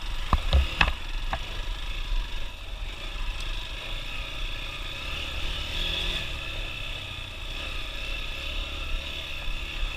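Hero XPulse 200 single-cylinder motorcycle engine running steadily at low revs while riding slowly over rough trail, with a few sharp knocks in the first second.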